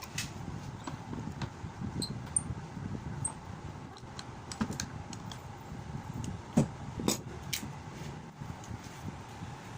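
Scattered light clicks and knocks of hand work on a cricket bat and its tools, with two louder knocks a little past the middle, over a steady background hum.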